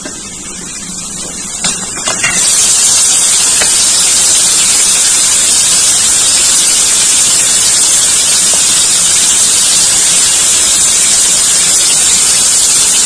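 A few light knife taps on a plastic cutting board, then about two seconds in a loud, steady hiss starts suddenly and holds level until it cuts off at the end.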